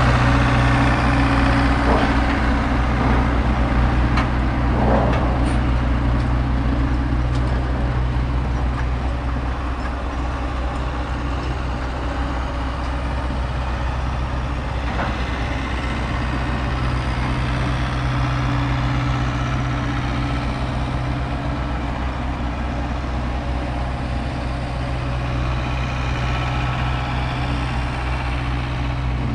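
Heavy vehicle engine running steadily at idle, with a few faint knocks over it.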